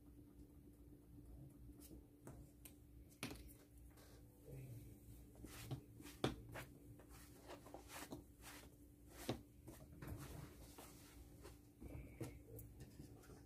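Faint handling sounds from hands working on a sneaker: light sandpaper scratching and cloth wiping on the midsole, with scattered light knocks as the shoe is moved, the loudest about six seconds in. A low steady hum runs underneath.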